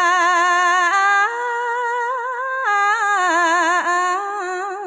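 Khmer smot, Buddhist chanted verse, sung by a woman's single voice holding long, drawn-out notes with heavy vibrato. The pitch steps up about a second in and falls back near three seconds.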